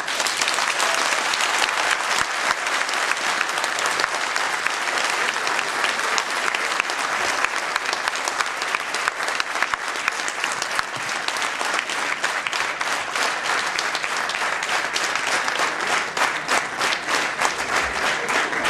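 Theatre audience applauding: dense, steady clapping of many hands, with single claps standing out more clearly toward the end.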